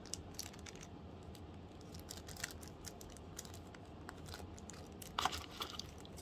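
Small clear plastic bead bags crinkling and rustling as they are handled and opened, with light scattered clicks of long acrylic nails against the plastic, and a louder crinkle about five seconds in.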